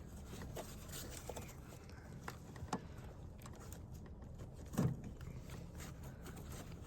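Faint plastic clicks and scraping of a headlight bulb's wiring connector being pressed and worked loose by hand, with a sharper click about five seconds in.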